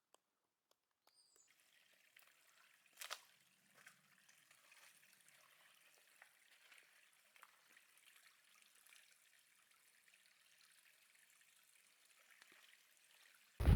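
Light rain falling: a faint, steady patter with scattered drips, and one short louder knock about three seconds in.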